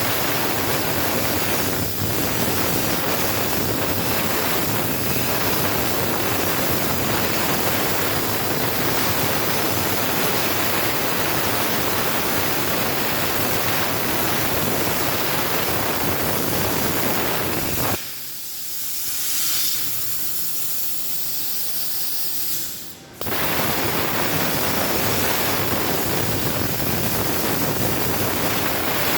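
CNC plasma cutter's torch cutting, a loud steady hiss. About eighteen seconds in the full hiss drops away for some five seconds, leaving only a thinner high hiss, then starts again.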